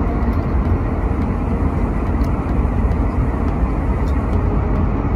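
Airliner cabin noise: a steady, loud low rumble of engines and rushing air with no change.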